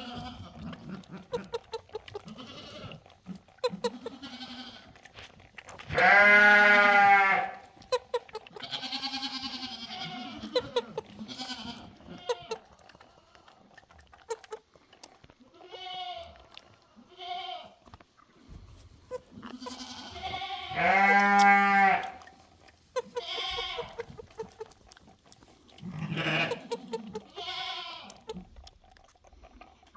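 Goat kid bleating while feeding from a bottle: two loud, long bleats, one about six seconds in and another around twenty-one seconds, with shorter, softer bleats and low murmurs between.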